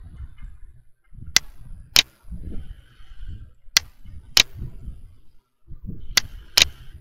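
Computer mouse button clicking, three pairs of sharp clicks, each a press and a release about half a second apart, as a picture is dragged by its corner handle to resize it. A faint low rumble runs underneath.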